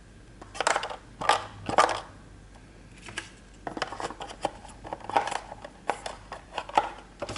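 Fingers rubbing, scraping and tapping on a smartphone box's cardboard insert and packaging. Three loud scrapes come in the first two seconds, then a run of shorter rustles and clicks.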